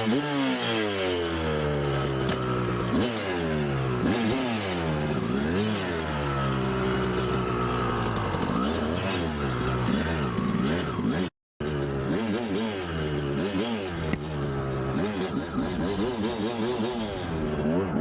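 A 1999 Kawasaki KX250's single-cylinder two-stroke engine revving up and down over and over as the dirt bike is ridden, with a brief cut-out of sound a little past two-thirds through.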